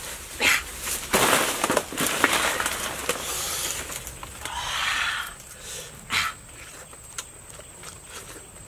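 Rustling and crackling of banana leaves and plant stalks being handled, in a run of bursts over the first few seconds, a softer rustle around the middle, and one sharp snap about six seconds in, then quieter.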